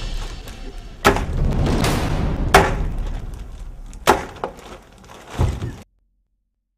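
Cat-o'-nine-tails whip lashing a raw ham on a wooden stand: four sharp wet smacks about a second and a half apart, then the sound cuts off abruptly.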